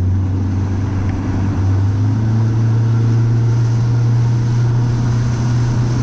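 Small boat's motor running under way, its note rising slightly about a second and a half in as the engine speeds up, over a steady hiss.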